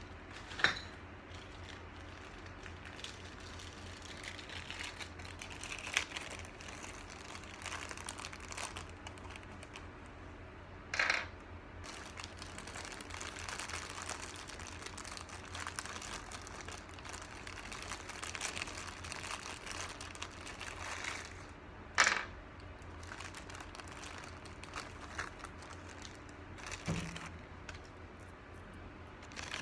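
Plastic packaging rustling and crinkling as it is handled, with a few sharp clicks and knocks of small parts spread through, over a steady low hum.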